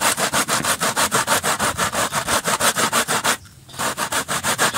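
Dry cow dung being rubbed back and forth on a homemade grater made from a zinc sheet punched through with nails, a fast rasping scrape at about six strokes a second, grinding the dung to powder. The strokes break off briefly about three and a half seconds in, then resume.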